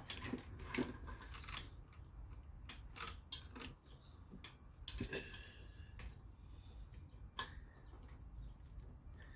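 Toyota 2AR-FE cylinder head's valve parts clinking and tapping as exhaust valves and springs are pulled out by hand: scattered light metal clicks, with one ringing clink about five seconds in.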